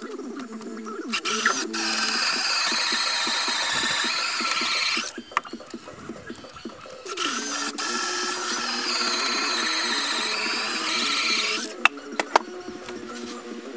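A power tool working the top log, run at full speed in two bursts of about four seconds each with a short pause between, giving a high, wavering whine.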